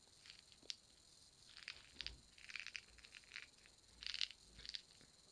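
Faint handling noise from a small plastic candy bottle: a scatter of soft clicks and short crinkly rustles, busiest a couple of seconds in and again near the end.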